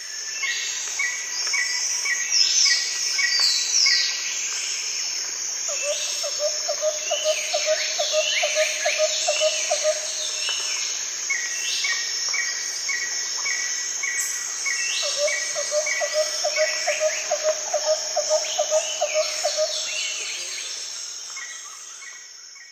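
Forest ambience of birds and insects: a steady high insect drone under many birds calling, with runs of short repeated notes and quick down-slurred calls. A lower, rapid string of notes comes in twice. The whole chorus fades out near the end.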